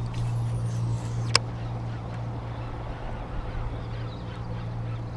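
Steady low hum of the fishing boat's motor, with one sharp click about a second and a half in.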